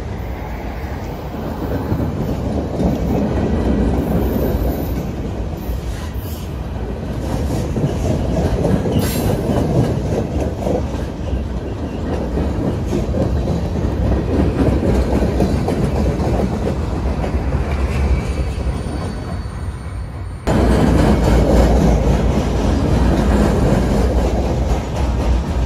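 Loaded freight flatcars rolling past on the rails: a steady rumble and clatter of steel wheels over the track, with a faint wheel squeal now and then. About twenty seconds in, the sound cuts abruptly to a louder, heavier rumble.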